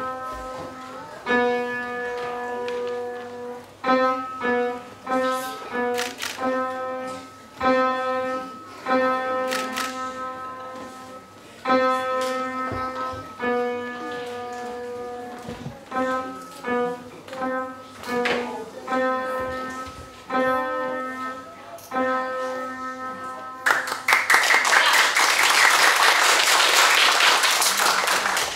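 A simple tune played on a keyboard as a line of separate held notes. Near the end it gives way to a burst of applause.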